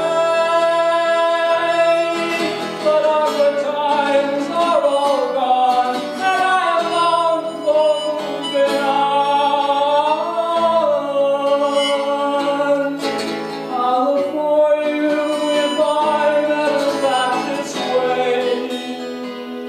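Acoustic guitar playing a folk song, with a voice singing long, wavering held notes over it.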